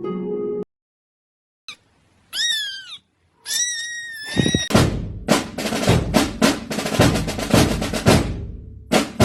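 A snippet of music breaks off. Two short high-pitched animal-like calls follow, then a snare drum roll of rapid hits about five seconds long, which stops abruptly near the end.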